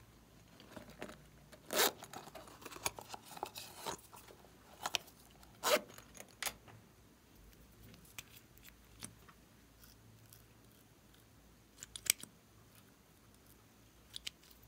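Small plastic containers and caps being handled and opened by hand: scattered sharp clicks and short scrapes, busiest about two seconds in, then a few single clicks.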